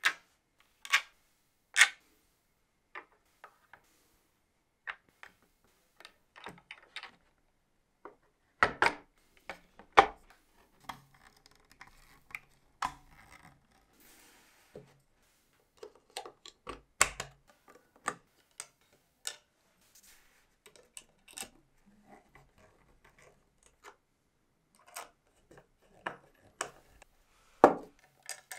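Clear plastic parts of a BMW boxer engine model kit clicking and knocking as they are handled and fitted together: irregular sharp clicks with short gaps, and a few louder knocks among them.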